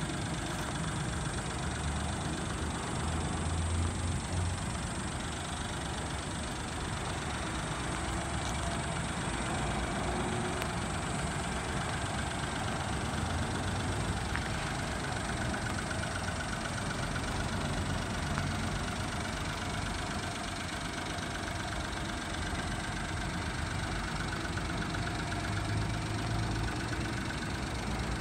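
Honda Acty mini truck's small three-cylinder engine idling steadily.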